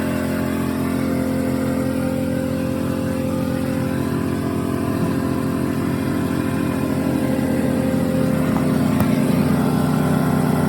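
An engine running steadily at a constant speed. Its pitch rises slightly about eight seconds in.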